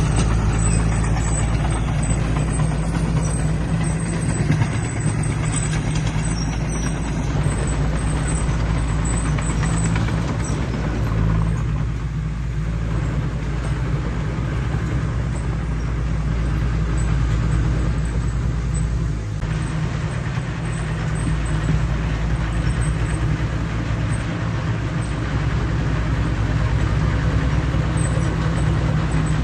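Diesel engine of heavy earthmoving equipment running steadily, its sound concentrated low in pitch with a constant mechanical noise above it.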